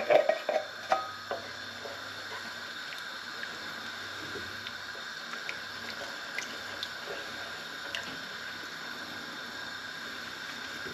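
Wooden spoon stirring coconut-milk curry sauce in an enamelled cast-iron pan, a soft liquid sound over a steady low hiss with a few faint taps of spoon on pan. It opens with a short run of knocks as the coconut milk tin is tapped and scraped out over the pan.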